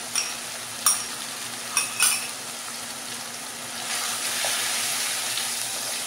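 Mutton liver and masala sizzling in a nonstick kadhai while a wooden spatula stirs, knocking against the pan four times in the first two seconds. From about four seconds in, the sizzle grows louder as freshly added yogurt is mixed into the hot pan.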